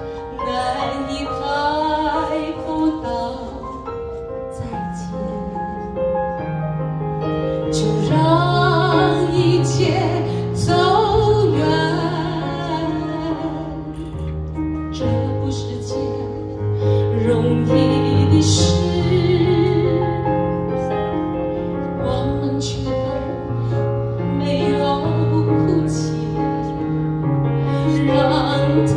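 A woman singing a Mandarin ballad live into a handheld microphone, her held notes wavering with vibrato, over instrumental accompaniment with a steady bass line.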